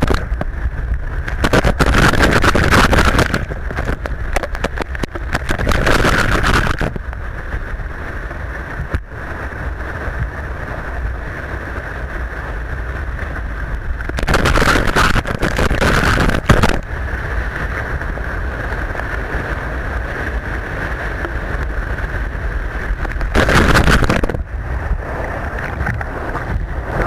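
Rushing white water below a river weir, heard from a camera on a kayak's bow, with four louder surges as the foaming water breaks over the camera.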